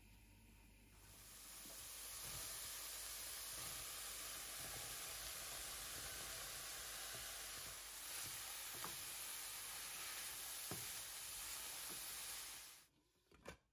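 Diced aubergine and courgette sizzling steadily in olive oil in a stainless steel frying pan, with a few light clicks from stirring. The sizzle starts about a second in and cuts off suddenly near the end.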